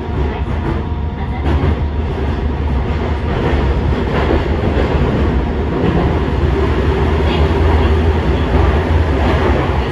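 A Yokohama Municipal Subway Blue Line 3000A-type train running out of a station into the tunnel and picking up speed. A steady low rumble of wheels on rail grows slowly louder, with a few faint clicks, heard from inside the cab.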